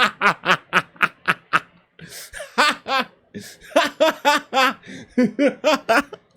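A man laughing hard in rapid bursts of ha-ha-ha, in four or five fits broken by short breaths.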